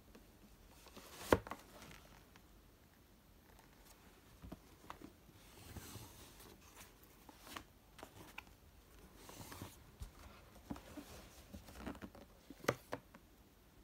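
A large cardboard box being handled: soft rubbing and sliding sounds as it is lifted and turned, with a sharp knock about a second in and another near the end.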